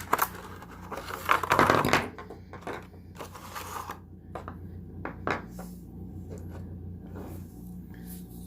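A flashlight being taken from its packaging and handled: a loud rustle of packing for about the first two seconds, then scattered small clicks and taps.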